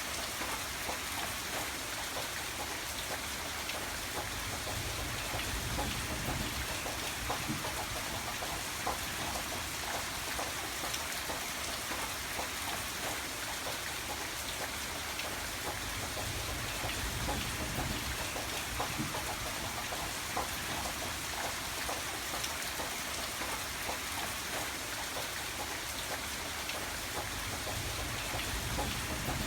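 Steady rain falling on a hard surface, with many individual drops ticking. A low rumble swells and fades a few times underneath.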